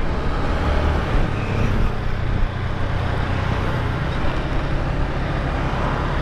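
Motorbike running steadily at road speed, its engine hum mixed with wind and road noise.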